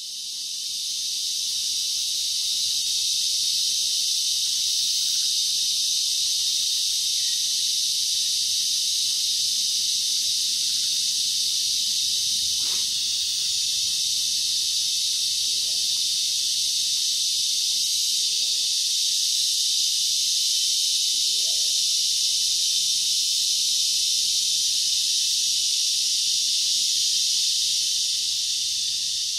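Dense, steady insect chorus of a tropical rainforest, a high-pitched hiss that fades in at the start and out at the end.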